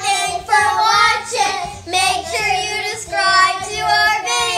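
Children singing together, a run of short held notes with brief breaks between them.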